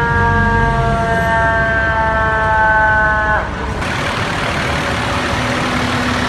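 A fire engine's air horn held in one long, loud chord that sinks slightly in pitch and drops away about three and a half seconds in. It is followed by the rushing noise of the truck and traffic going past.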